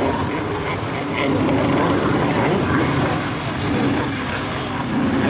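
Stand-up freestyle jet ski engine running hard, with the hiss of water spray. The level sags a little in the middle and picks up again near the end.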